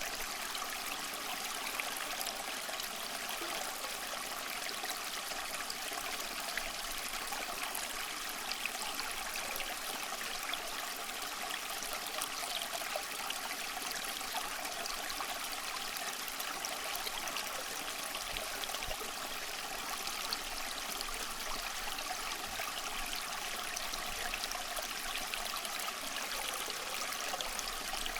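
Stream of water running and trickling steadily, an even rushing splash with no change in level.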